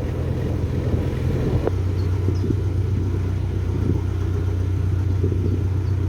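Narrowboat's diesel engine running steadily under way, a low even drone. About a second and a half in there is a click and the drone settles to a steadier pitch.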